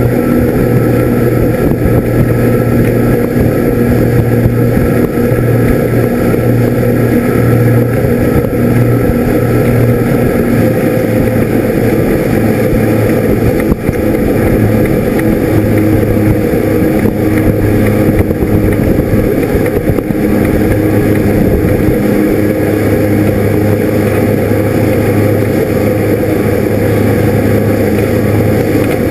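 Fishing boat's engine running steadily at speed, a constant hum over the rush of water churned up in its wake.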